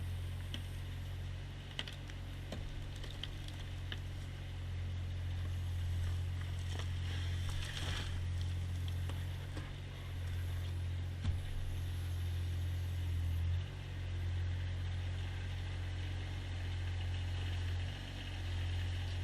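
An engine running steadily with a low, even drone, with scattered clicks and rattles over it and a brief burst of rough noise about eight seconds in.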